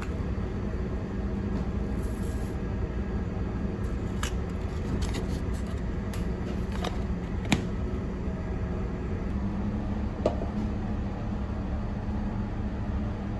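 Steady low drone of a ship's engines and machinery, with a few light clicks and foil rustles as oats are scooped from a foil-lined tin into a steel pot.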